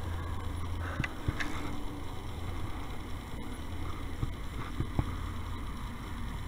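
A steady low rumble from a kayak on the water, with a few scattered light knocks and clicks as the boat and fishing gear are handled during a fight with a catfish.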